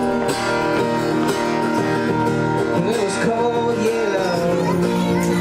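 Acoustic guitar music with singing.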